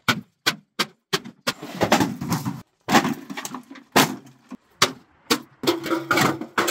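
A sheet-metal microwave oven being smashed apart for scrap: about ten sharp metal bangs and crunches as it is stamped on and struck, with panels clattering and scraping as they are torn loose.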